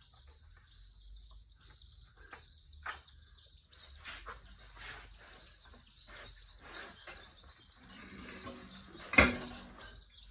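Scattered light clicks and knocks of hands working at a small engine's oil filler cap and dipstick, with one sharp knock about nine seconds in. A faint steady high-pitched chirring runs underneath.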